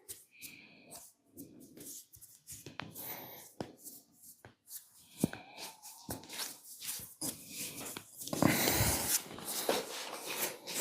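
Hands-on massage: skin and hair being rubbed and patted, with scattered sharp clicks. The loudest part is a denser stretch of rubbing about eight seconds in, lasting a second or so.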